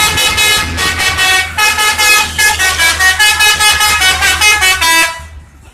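Bus telolet horn, a multi-tone musical air horn, playing a quick tune of short pulsed notes at changing pitches over a low steady rumble. It stops a little over five seconds in.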